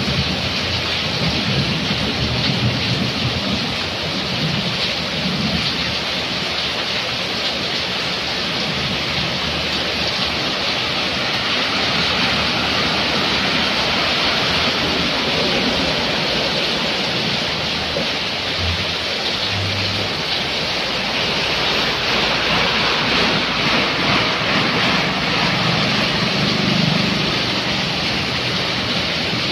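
Heavy rain pouring steadily onto a flooded road, a dense, even hiss.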